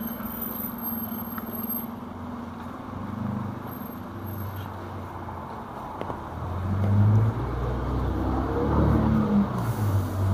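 Road traffic on a wet city street: cars passing with a steady hiss of tyres on wet asphalt. About two-thirds of the way in, a deeper vehicle engine grows louder close by and stays the loudest sound.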